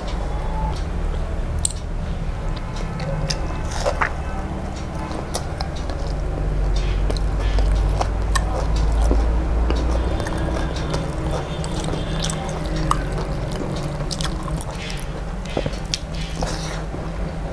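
Close-up eating sounds: sips of water from a glass, then fingers mixing rice on a steel plate, with wet chewing and many small mouth clicks over a low steady hum.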